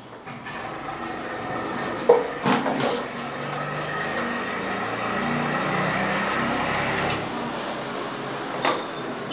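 Handling noise from a phone moving against a cotton shirt: a steady rubbing, rushing noise, broken by a few sharp knocks about two to three seconds in and once more near the end.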